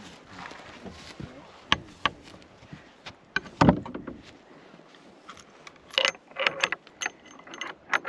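Horse tack jingling and clinking, metal bit and bridle fittings, with scattered sharp clicks, a heavier thud about halfway through and a cluster of louder clinks near the end.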